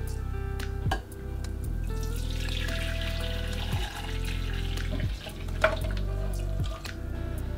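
Sea bream broth pouring from a metal saucepan through a wire-mesh strainer into a glass bowl, a splashing trickle that is strongest about two to four seconds in, under background music with a steady bass line.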